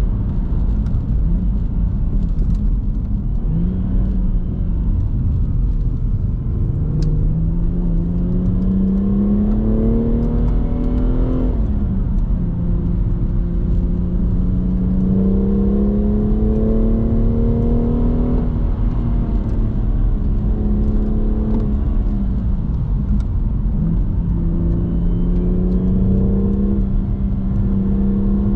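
BMW M240i's turbocharged 3.0-litre inline-six pulling up a winding road, its pitch climbing slowly under load and dropping or jumping at several gear changes, over steady road and tyre rumble.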